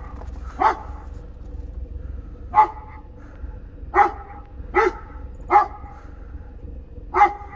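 Dog barking: six short single barks at irregular intervals, over a steady low rumble.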